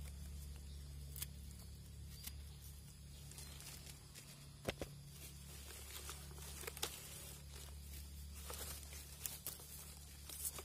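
Faint rustling and crackling of dry leaf litter and twigs, with scattered sharp snaps, the sharpest about halfway through and a cluster near the end. A steady low hum runs underneath.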